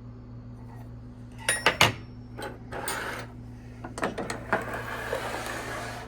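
Loose steel hand wrenches clinking against one another as they are handled and set down, with a few sharp clinks about a second and a half in, then metal scraping and sliding over a surface. A steady low hum runs underneath.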